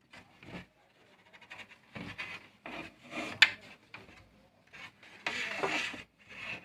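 Plastic back cover and wiring of an LED TV being handled and pulled free: rubbing and scraping, with a sharp click about three and a half seconds in and a longer scrape near the end.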